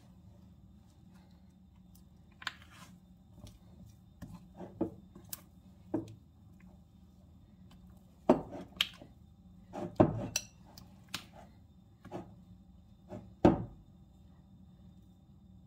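Kitchen utensils and dishes knocking and clinking in irregular, scattered hits, the loudest about eight, ten and thirteen and a half seconds in, over a low steady hum.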